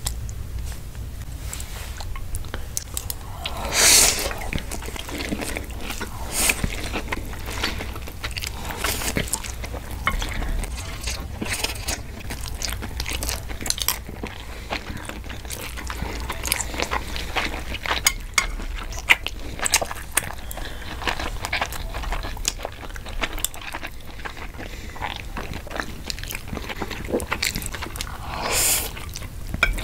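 Close-miked eating sounds: wet chewing, lip smacks and slurping of stir-fried noodles eaten with chopsticks, with a few louder slurps, one about four seconds in and one near the end, over a low steady hum.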